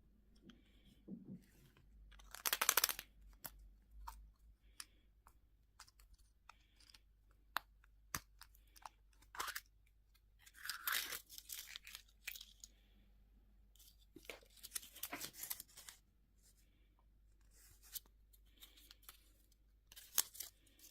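Candy and toy packaging being torn open in four separate bursts of tearing, with scattered small clicks and taps between them.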